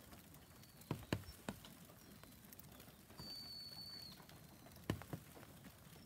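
Quiet winter-woodland ambience in falling snow: a low steady hiss with a few sharp taps, mostly in pairs, about a second in and again near the end, and a thin high steady note lasting about a second in the middle.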